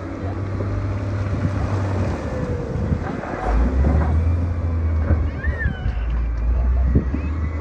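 Diesel engine of heavy earthmoving equipment running, with a deep drone that drops lower and gets louder about three and a half seconds in as the load changes. A few brief high squeals sound over it.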